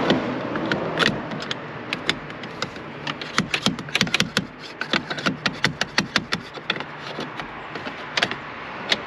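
Sharp metal clicks and taps from a hand tool worked in the boat steering wheel's centre hub. A few come in the first two seconds, then a fast, irregular run of them follows until about seven and a half seconds in.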